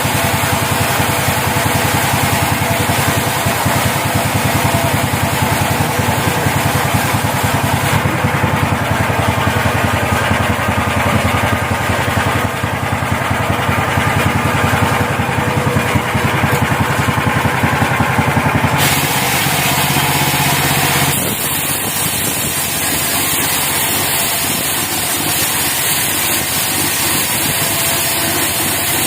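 Engine of a portable band sawmill running steadily, loud and continuous, with abrupt changes in its tone a few times.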